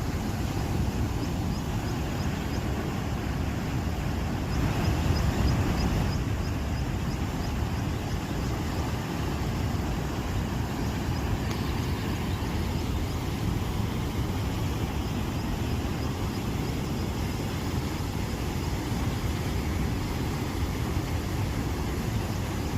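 Heavy water pouring over a dam's waste weir spillway: a steady rushing roar with no break, a little louder about five seconds in.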